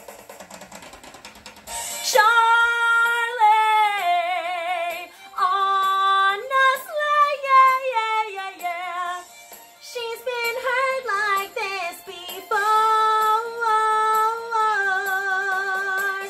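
A woman belts long held notes with wide vibrato in a musical-theatre song over a quiet backing track. The backing track is heard alone for the first two seconds before the voice comes in.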